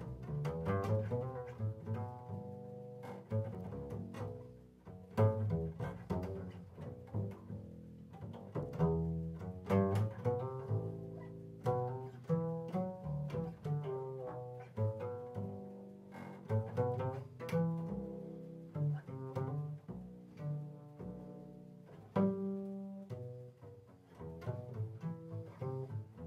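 Five-string upright bass played pizzicato in a slow, hymn-like improvisation. The plucked notes come one after another with sharp attacks and ring on, often overlapping one another.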